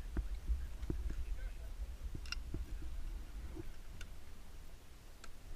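Wind rumbling on a helmet-mounted GoPro's microphone, with scattered light clicks and knocks of climbing gear such as ice axes and crampons.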